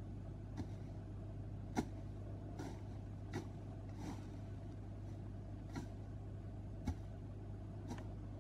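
About eight short sharp taps or clicks at uneven intervals, the loudest about two seconds in and about seven seconds in, over a steady low hum.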